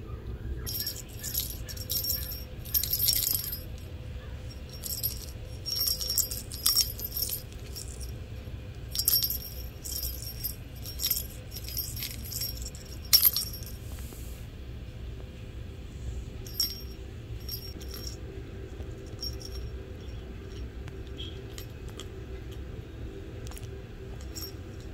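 A red plastic cage ball with a bell inside, shaken by hand and jingling in rapid bursts for the first half or so, then only now and then.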